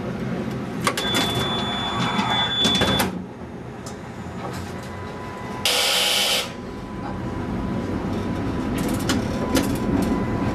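Inside a New Orleans streetcar as it moves off: a low, steady running rumble. For about two seconds near the start a flat, high electronic beep sounds over clicking and rattling. A little past the middle comes a short, loud hiss lasting under a second.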